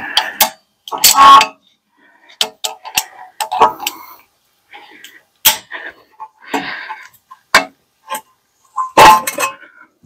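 Irregular metallic clicks and clinks from a clamp and locking pliers being worked on a brake caliper, forcing the caliper piston back into its bore to make room for new pads.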